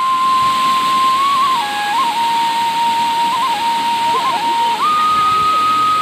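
A whistled tune in long held notes with small turns between them, stepping up to a higher note near five seconds in, over the steady rush of a waterfall.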